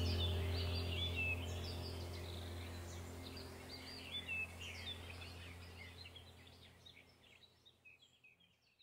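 Faint birds chirping over a steady low drone, the whole sound fading out to silence near the end.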